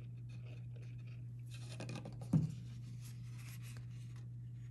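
Cardstock rustling and scraping as a glued paper flap is handled and pressed into place, with a single sharp knock about two and a half seconds in, over a steady low hum.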